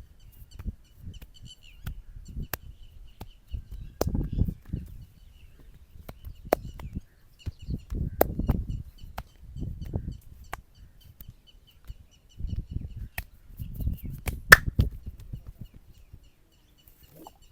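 Hands working over a man's head in a massage: bursts of low rubbing and kneading against hair and skin, broken by a series of sharp snaps. Faint bird chirping runs underneath.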